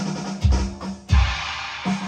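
Music with a drum kit: two heavy bass-drum hits under a held low bass note, with a cymbal wash coming in on the second hit.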